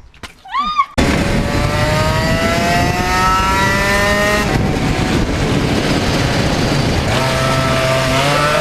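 Shifter go-kart engine running hard, starting abruptly about a second in. Its pitch climbs steadily for a few seconds, then drops away, and a steadier engine note comes back near the end.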